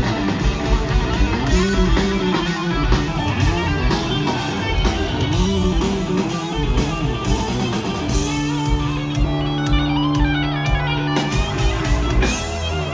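Live rock band, with Telecaster-style electric guitar, electric bass and drum kit, playing loudly. About eight seconds in, the band settles onto a held chord over the drums, which breaks off about three seconds later.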